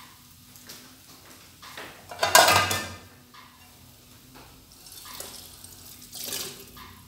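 Kitchen handling noises: dishes and utensils knocking, with a short rushing burst of noise about two seconds in, likely a tap run briefly, and a smaller one near six seconds.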